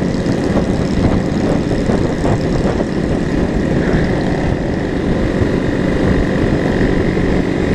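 KTM supermoto's single-cylinder engine running steadily at road speed, mixed with heavy wind rush on the helmet camera.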